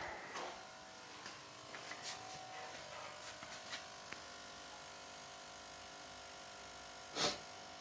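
Continuous faint electrical buzz from the automatic transmission of a Nissan with a QG18DE engine, with the ignition on and the engine not running. The buzz stops when the throttle position sensor is unplugged, and the owner suspects the TPS. A short rustle sounds near the end.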